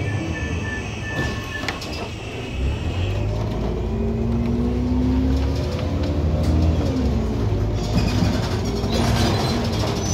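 City bus heard from inside the cabin, its engine and drivetrain running as it drives and slows for a stop. A whine rises and falls about midway, and a hiss comes near the end.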